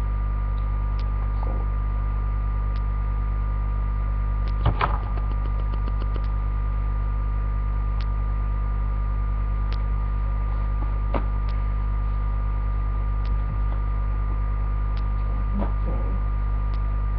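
Steady electrical mains hum, over which come scattered small clicks and a brief cluster of rustling and clicking about five seconds in, from a baby doll and its clothes being handled.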